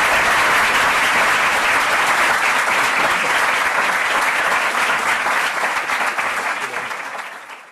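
Audience applauding, a dense steady clapping that dies away over the last couple of seconds.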